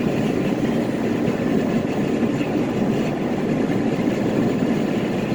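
A steady low rumble, even throughout, with no distinct knocks or changes.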